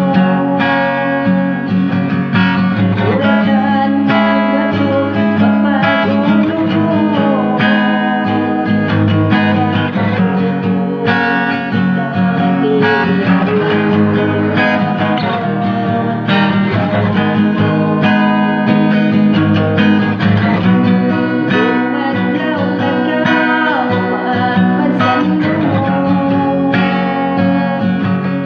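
Music led by guitar, playing steadily.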